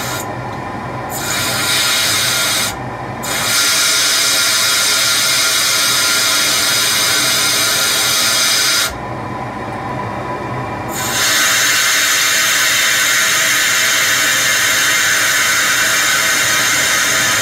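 Air hissing out of a newly filled electric water heater's temperature and pressure relief valve as the valve is held open, cut off briefly three times when it is let go. The hiss is the sign of trapped air still being bled from the top of the tank.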